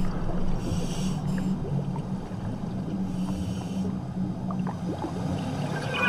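Underwater scuba sound: a steady low hum with two bursts of bubbling hiss, about a second each, from a diver's exhaled regulator bubbles, one near the start and one around the middle.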